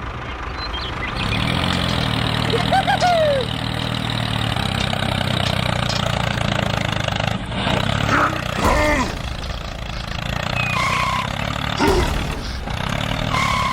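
An engine, as of a mini tractor, starts up about a second in and then runs steadily, with a few short squeaky glides over it.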